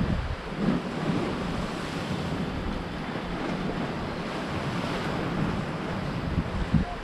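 Sea surf washing on the shore, a steady rush, with wind buffeting the microphone and a brief thump near the end.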